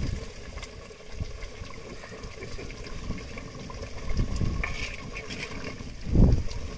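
Wet eating sounds from mutton curry and rice: soft chewing and squelching, with a louder low burst about six seconds in.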